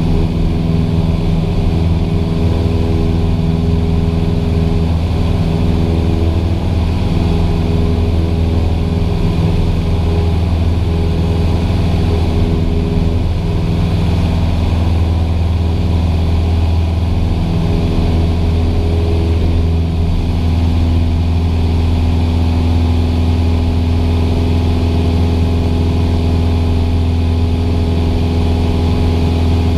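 Cessna 172's piston engine and propeller running steadily at climb power, heard from inside the cabin.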